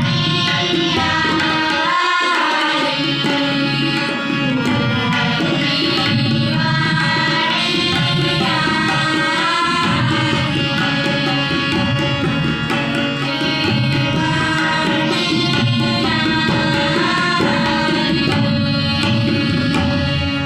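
Sikh shabad kirtan: children singing a devotional hymn over held harmonium chords, with a steady tabla rhythm underneath.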